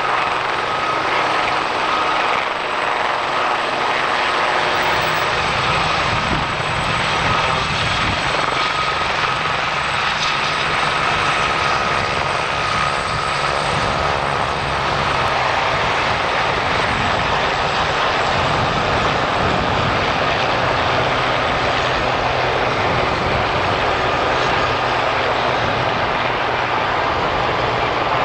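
Army Air Corps helicopters, a Westland Lynx AH1 and Aerospatiale Gazelles, flying low: a steady turbine whine over the rotor and engine noise.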